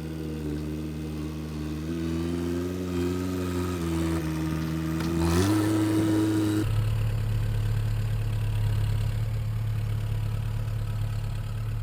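Homemade backhoe's engine running, its speed stepping up and down and rising about five seconds in, then settling into a steady lower drone for the rest of the time.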